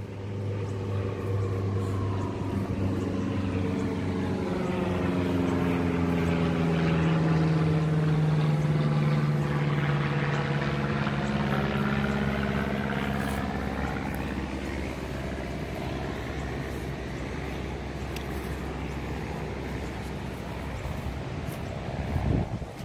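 Aircraft engine passing overhead: its note slowly falls in pitch as it goes by, with a sweeping, phasing swoosh, swelling to its loudest mid-way and then fading. A short bump near the end.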